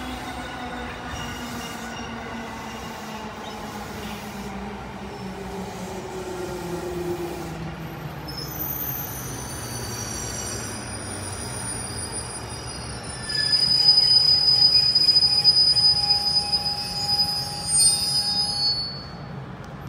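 JR Kyushu 811 series electric train slowing into a station: its motor whine falls steadily in pitch as it brakes. About two-thirds of the way through, a loud, high squeal sets in as it comes to a stop, then fades just before the end.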